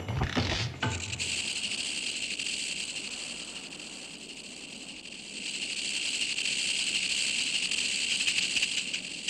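Rattlesnake rattling: a steady high buzz that eases off for a while midway, then swells again. Drum-led music fades out about a second in.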